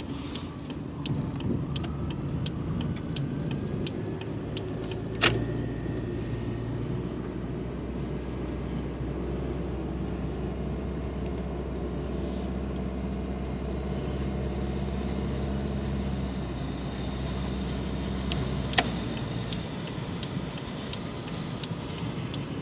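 Inside a moving car: the 1994 Toyota Camry's 2.2-litre four-cylinder runs steadily under way, an even low drone that eases off about nineteen seconds in. Two sharp clicks come about five seconds in and near the end, and a regular light ticking is heard near the start and again near the end.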